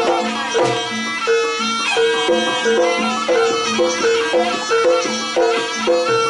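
Jaranan dance music from a traditional East Javanese ensemble: a reedy melody instrument and tuned percussion playing a repeating pattern of pitched notes at about two a second, steady and unbroken.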